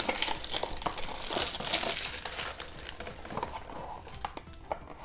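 Foil wrap on a small cardboard surprise box being torn and peeled off by hand, crinkling densely at first and thinning to scattered crackles after about two and a half seconds.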